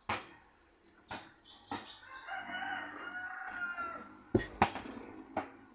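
A rooster crowing once, one long call of about two seconds, among several sharp clicks and knocks, the two loudest just after the crow.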